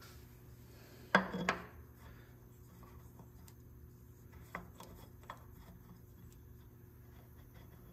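A Stens spin-on transmission filter being fitted by hand onto a Hydro-Gear transaxle's metal filter mount: a short clatter of knocks about a second in as it is set against the mount, then faint rubbing and a few small clicks as it is threaded on.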